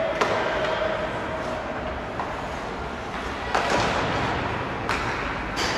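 Ice hockey play in a rink: sharp knocks of sticks and puck against the boards, four of them, the loudest a little past halfway, over the steady background noise of the arena.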